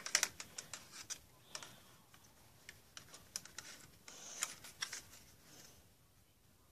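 Light clicks and taps of a small plastic toy quadcopter being handled, with a cluster of sharp clicks at the start and more scattered through, fading to quiet near the end.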